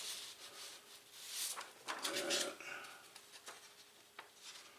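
Paper targets rustling and scraping in short bursts as they are handled.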